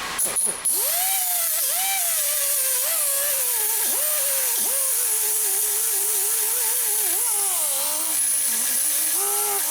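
Handheld power grinder spinning up, running with its pitch wavering as it is pressed on the work, then winding down near the end, with a steady hiss throughout.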